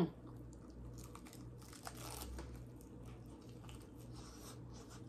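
Faint crinkling and crunching as fried chicken and its paper wrapping are handled, with scattered light clicks; the rustling picks up a couple of times.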